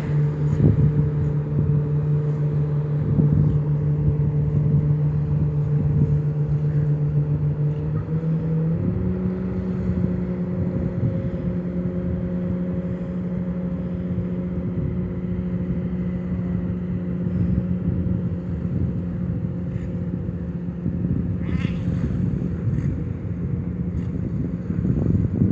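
A steady low motor hum on one held pitch that steps up slightly about nine seconds in and then holds.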